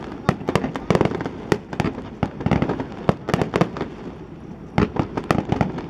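Aerial fireworks bursting in quick succession: an irregular run of sharp bangs and crackling pops, with a short lull about four seconds in before more bursts.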